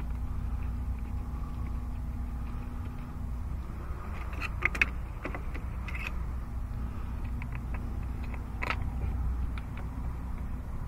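Metal hand tools clinking against each other and a metal tool tray: a few short sharp clinks about halfway through, another a little later and one more near the end, over a steady low hum.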